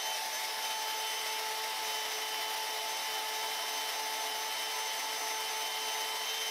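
DeWalt portable band saw running at a steady speed with a steady motor whine, cutting through a steel bar fed into its blade by hand.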